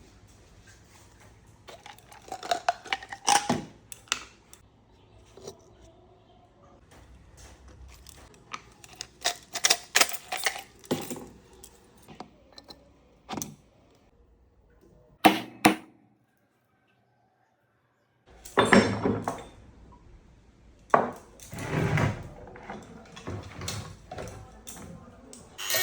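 Irregular knocks, clicks and scrapes of hand tools and metal parts being worked on a table fan motor during a shaft-bush change. There is a brief dead-silent break about two-thirds through.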